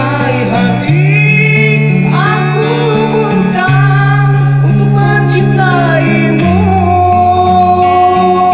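A song: a singer holding long, wavering notes over guitar accompaniment and a bass line that changes note every couple of seconds, with one long note held from about six and a half seconds in.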